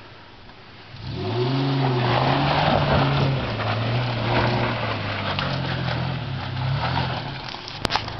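Nissan Pathfinder's engine pulling under load as the SUV climbs a steep, rocky dirt trail, rising about a second in and holding steady, with tyres crunching over rocks and dirt.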